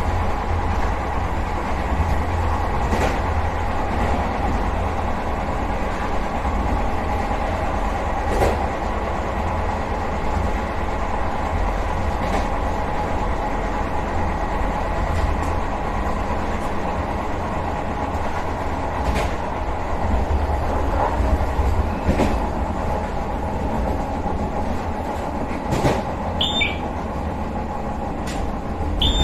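Vande Bharat Express electric multiple-unit train running at speed, heard inside the driver's cab: a steady low rumble with occasional single clicks from the wheels over rail joints. Two short high beeps sound near the end.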